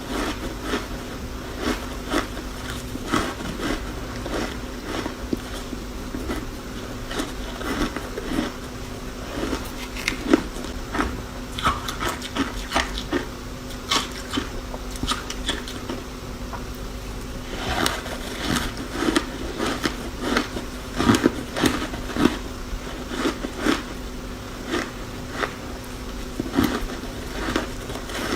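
Close-miked crunching and chewing of ice cubes coated in matcha powder: irregular sharp cracks and crunches in clusters, over a faint steady hum.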